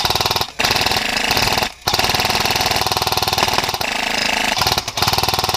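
Airsoft light machine gun firing long fully automatic bursts, with a rapid, even rattle broken by short pauses about half a second in, near two seconds, and near five seconds.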